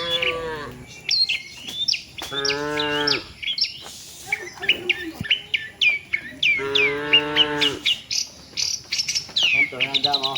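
Cattle mooing: a call trailing off at the start, two full moos of about a second each, and another beginning near the end. Small birds chirp rapidly throughout.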